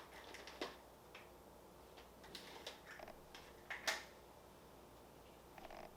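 Faint, irregular clicks and taps from a box's contents being handled, with a louder click about four seconds in.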